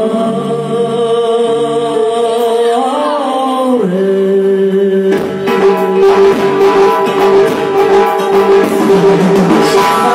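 Live band music: a long held melody note slides down about four seconds in, then drum kit and frame drum come in with a steady beat about five seconds in.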